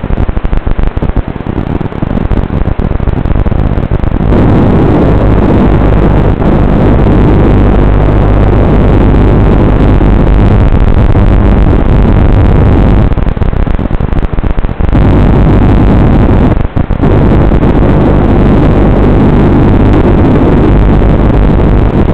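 FPV racing quadcopter's motors and propellers, heard through the onboard microphone over the analog video link: a loud, distorted, steady buzz that dips briefly a few times as the throttle changes.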